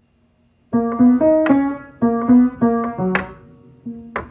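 Piano being played slowly, one or two notes at a time, starting a little under a second in: a short simple phrase picked out and then repeated, the way a beginner plays along with a TikTok tutorial.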